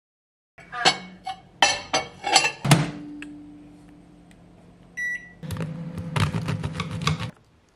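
Kitchen sounds in quick succession: a plastic tub and lid knocking and clattering against a ceramic bowl, a microwave oven humming and giving one short keypad beep about five seconds in, then a knife cutting through a crusty baguette.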